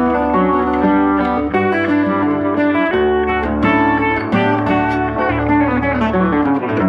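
Instrumental music: a plucked guitar playing a quick run of notes over held low bass notes.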